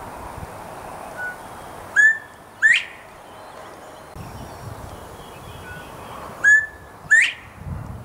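Male northern bobwhite giving its whistled 'bob-white' call twice, about four and a half seconds apart: each time a faint short note, a level whistle, then a loud, sharply rising whistle. This is the male's advertising call, which the uploader takes for a mating call.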